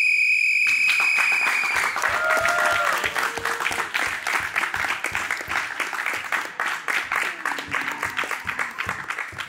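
A referee's whistle blown in one long, steady blast of about two seconds, then hands clapping for the rest of the time.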